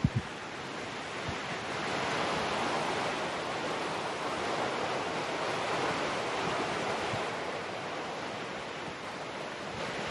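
Rushing creek water, a steady rush that grows louder about two seconds in and eases slightly near the end. Two soft knocks right at the start.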